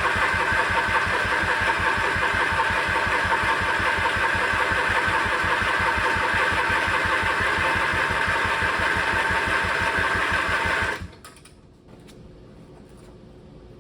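The starter of a 1990s Craftsman riding lawn mower cranks the engine over in an even rhythm without it firing, then stops about eleven seconds in. The engine turns over but won't start, which is later traced to a spark problem.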